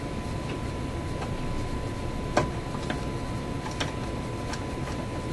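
A screwdriver tip clicks and taps irregularly against the vintage tube radio as it is worked into the slot of the oscillator trimmer capacitor. The loudest tap comes about two and a half seconds in. Under it runs a steady faint high tone with a low hum and hiss from the radio during alignment.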